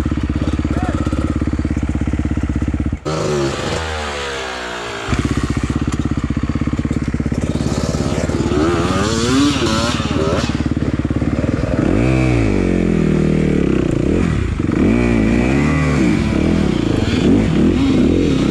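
Enduro dirt bike engines at close range. A steady engine note drops away for about two seconds around three seconds in, then returns. In the second half, engines rev up and down over and over.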